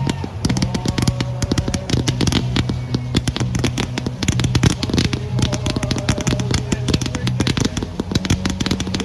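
Consumer fireworks going off in a dense, rapid run of crackling pops that continues unbroken, over a steady low drone.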